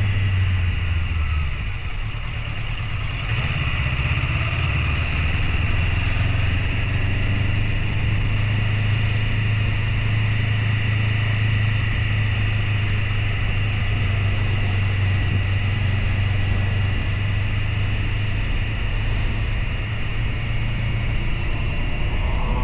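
Motorcycle engine running steadily under way, easing off briefly about two seconds in and then holding an even speed.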